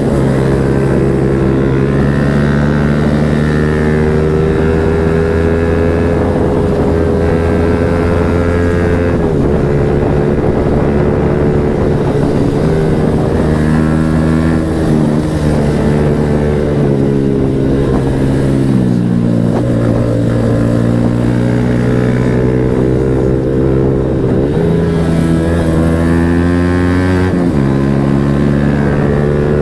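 Yamaha MT-15's single-cylinder engine running through an aftermarket Akrapovic exhaust, loud and steady. Its pitch holds for several seconds at a time, drops twice and climbs again near the end.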